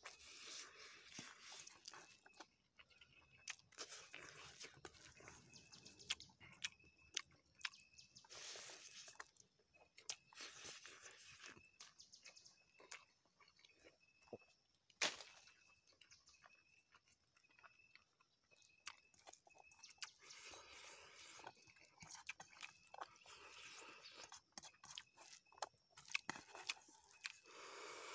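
Faint sounds of a person eating rice by hand from a steel tiffin box: chewing and mouth noises, with soft clicks and scrapes of fingers against the metal. One sharper click comes about halfway through.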